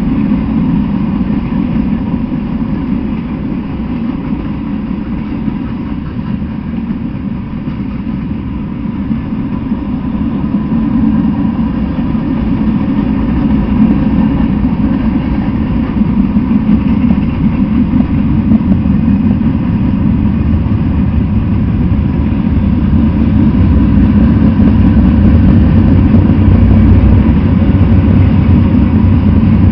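Freight train of covered hoppers and open gondolas rolling past: a steady, loud rumble of steel wheels on the rails. It grows louder and deeper over the last third.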